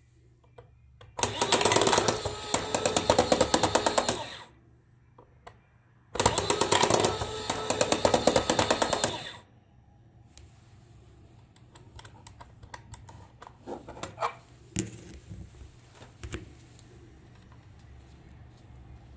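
Toy coin bank's small electric motor and plastic gear train running in two bursts of about three seconds each, a fast mechanical clatter, driven at 8 volts from a bench power supply. Lighter scattered clicks and knocks of plastic being handled follow in the second half.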